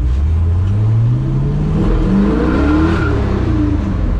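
Small-block Chevy V8 pulling under acceleration, heard from inside the truck's cab. The engine's pitch climbs steadily for about two seconds, then eases back down about three seconds in.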